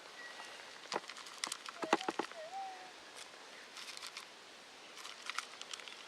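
Dry creek-bed dirt being crumbled and sifted by hand, with scattered crackles and sharp clicks of soil and grit, busiest around two seconds in.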